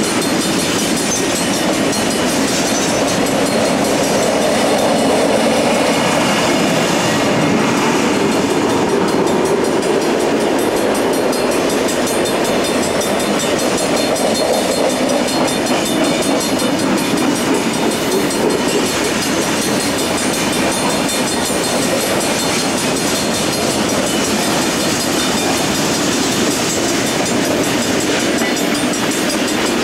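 A freight train's boxcars rolling past at steady speed, with the continuous noise of steel wheels running on the rails.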